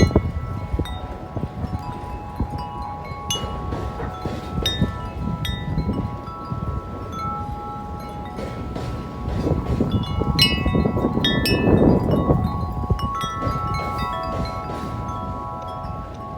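Corinthian Bells 36-inch wind chime ringing in strong, gusting wind: its tubes are struck again and again, and their tones hang on and overlap. Wind buffets the microphone as a low rumble, strongest about twelve seconds in.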